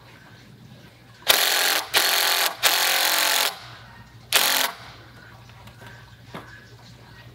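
DeWalt cordless impact driver driving screws into a 2x6 wooden rafter: three bursts back to back about a second in, then a shorter burst about four seconds in.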